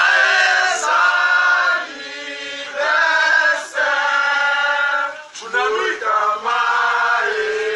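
A group of voices singing together without instruments, in held phrases of about a second each.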